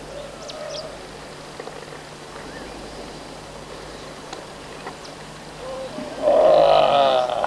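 A man lets out a loud, wavering whoop lasting about a second near the end, over a faint steady low hum.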